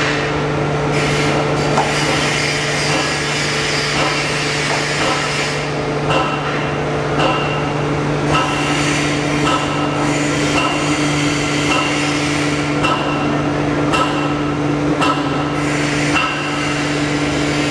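Memory-foam cutting machine running: a steady motor hum with a sharp knock repeating about once a second.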